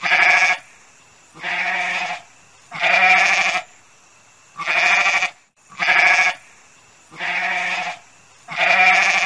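Goat bleating over and over: seven drawn-out calls, each under a second, about a second and a half apart.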